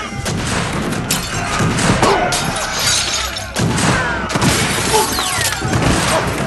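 Dramatised violent struggle: a dense run of loud bangs, crashes and shattering, with a few shouts, over music.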